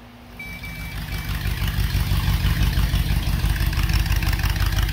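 A 1977 Dodge B200 van's 318 V8 running, growing louder over the first two seconds, then holding steady before it cuts off abruptly.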